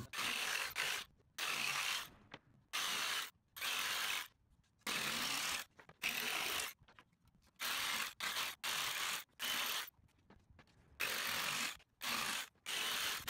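Corded Ryobi jigsaw cutting thin plywood, its blade rattling through the wood. The sound comes in about a dozen short chunks that start and stop abruptly, with sudden silences between them, as the cutting is edited down.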